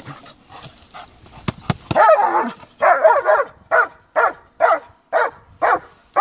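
German Shepherd barking at a helper holding a bite sleeve: a few sharp knocks, then loud barks from about two seconds in that settle into a steady run of about two barks a second.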